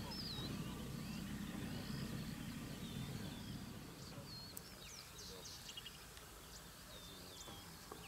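Wild birds calling: many short, overlapping chirps and whistles, some rising and falling. Beneath them is a low rumble that drops away about halfway through.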